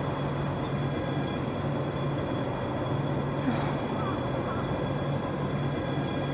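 Steady outdoor background noise with a low hum, and a brief faint sound about three and a half seconds in.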